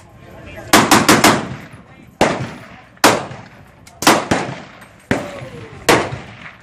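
AK-style rifle firing: a quick burst of about four shots about a second in, then five single shots roughly a second apart, each trailing off in echo.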